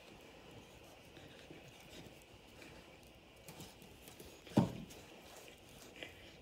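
Two Keeshonds play-wrestling on a tile floor: soft scuffling of fur and bodies with faint scattered clicks of claws on the tile. About two-thirds of the way through comes one short, loud low sound.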